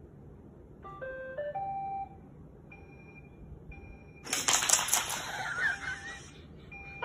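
Robot vacuum playing a short electronic tune of stepped beeps, then a few single beeps. About four seconds in comes two seconds of louder noise.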